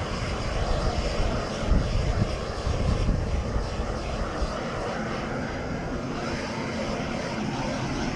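Propane shrink-wrap heat gun burning steadily with a constant rushing noise, its hot air shrinking the plastic boat wrap tight.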